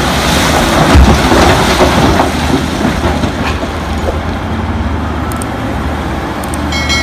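Heavy mining machinery: a Caterpillar wheel loader tipping rock into the steel bed of a Caterpillar haul truck, a loud crashing pour that is loudest about a second in. It then settles into a steady din over the deep running of the diesel engines.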